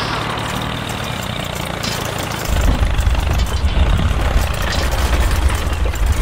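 Engine running with a grinding drill noise as a spiral drill bit bores into rock; a strong low rumble joins in about two and a half seconds in and stays louder.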